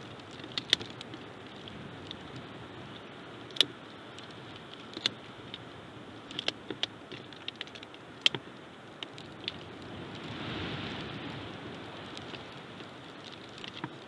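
Wind blowing steadily across the nest-cam microphone, swelling in a gust about ten seconds in. Over it come irregular sharp clicks and snaps of dry sticks as a bald eagle works the nest material with its beak.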